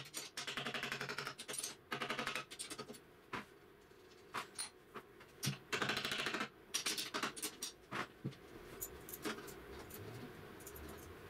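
Hand tools working on a planer thicknesser's metal frame: three bursts of rapid, even clicking, each about a second long, around the start, about two seconds in and about six seconds in, with single knocks and taps between them and after.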